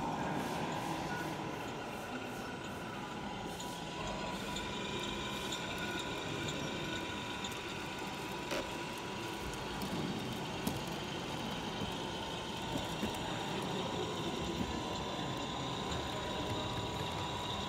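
Radio-controlled scale trucks running: a steady drone with a thin, high, steady whine, and a few light clicks and knocks.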